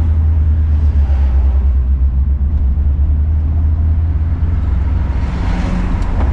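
Steady low engine and road rumble inside the cab of a moving Volkswagen Kombi, with a rushing noise swelling briefly about five seconds in.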